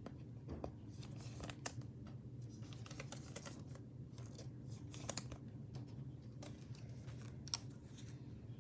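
Faint, scattered clicks and light rustling of trading cards being handled and tilted in the hand, over a low steady room hum.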